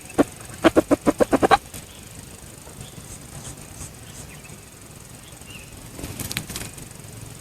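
Red junglefowl making a quick run of about eight short, sharp sounds in the first second and a half, followed by a fainter rustle near the end.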